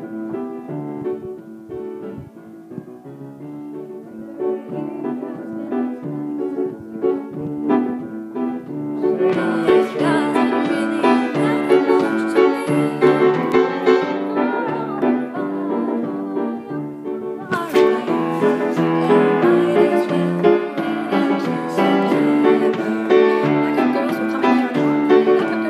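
Upright piano played with both hands, starting quietly, then louder and fuller from about nine seconds in.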